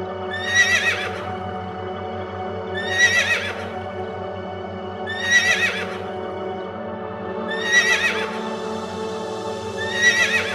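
A horse whinnying: the same short, high, wavering call repeats five times, about every two and a half seconds, over steady background music.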